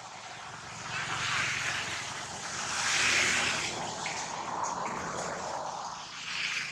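A passing engine: a steady low hum under a rushing noise that swells to its loudest about three seconds in, then eases off.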